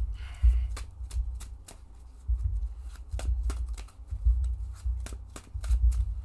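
A deck of Magic: The Gathering cards being shuffled by hand: a string of quick, irregular card snaps and taps, a few a second, with low knocks against the table.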